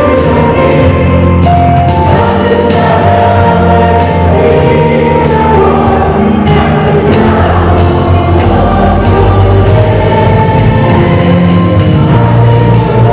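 A church hymn sung by choir and congregation, with instruments and percussion keeping a steady beat.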